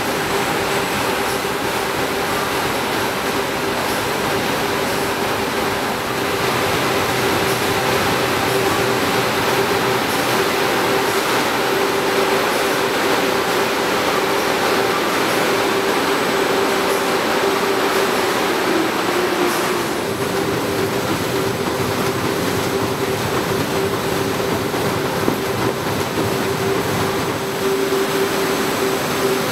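Large corrugated-box printing machinery running: a loud, steady mechanical din with a constant hum underneath.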